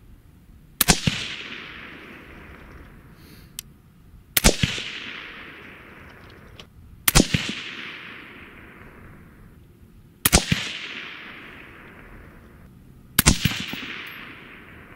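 Five rifle shots from a suppressed AR-15 in .223 Wylde fitted with a Liberty Infiniti X suppressor, fired slowly about every three seconds. Each is a sharp crack followed by an echo that fades over a couple of seconds. A small click sounds between the first two shots.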